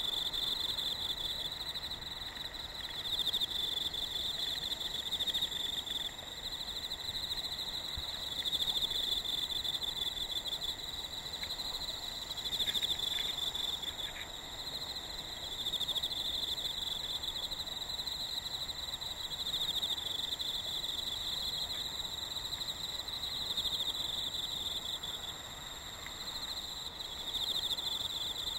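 Autumn insects singing: rapid pulsed trills in repeated phrases a few seconds long, with a thin steady high tone beneath them.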